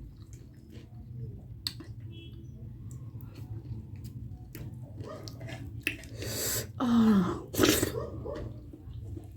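Eating at close range: chewing and small clicks of utensils on dishes. About six seconds in come two loud breathy rushes of air with a short, falling vocal grunt between them.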